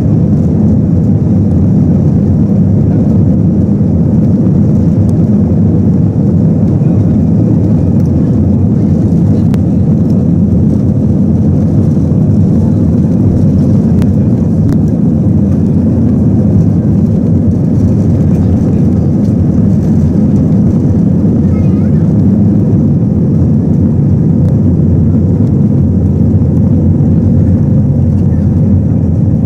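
Twin CFM56-5B turbofans of an Airbus A319-111 at takeoff thrust, heard from a cabin seat over the wing during the takeoff roll: a loud, steady roar.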